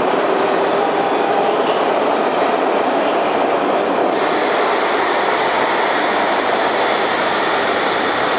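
SEPTA Broad Street Line Kawasaki B-IV stainless-steel subway cars running along an underground platform and slowing, a steady loud rumble of wheels on rail. A thin high whine joins about halfway through.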